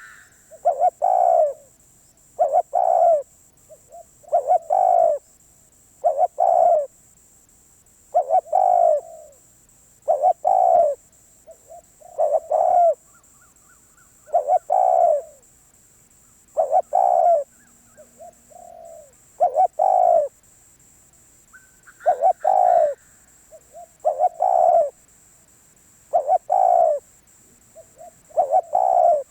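Spotted dove cooing over and over: a deep, hoarse coo about every two seconds, some preceded by a short lead-in note.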